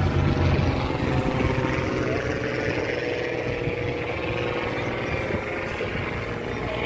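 Engine noise of a former Swiss Air Force display aircraft flying past overhead: a steady drone with a held tone that slowly fades as the aircraft moves away.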